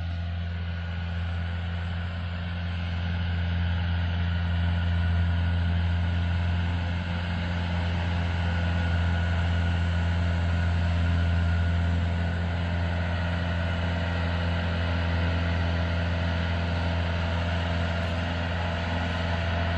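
Engine of a self-propelled crop sprayer running steadily, a constant low drone.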